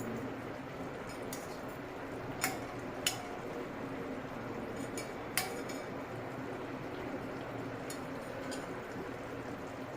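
A metal utensil clinking against a cooking pot three times, sharp single strikes, over a steady low hiss.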